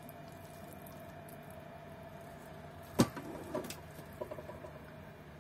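A wooden spoon knocking once sharply against the thermal cooker's inner pot about three seconds in, then a few lighter taps and scrapes as risotto is served onto a plate, over a faint steady hum.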